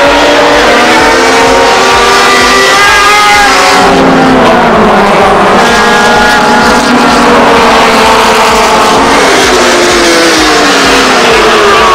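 Racing engines at high revs, several at once, very loud. Their pitch climbs and drops as the vehicles shift gear and pass by at speed.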